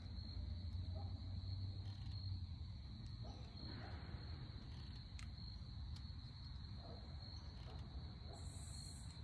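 Crickets singing in a steady, high-pitched, unbroken trill, with a low rumble underneath.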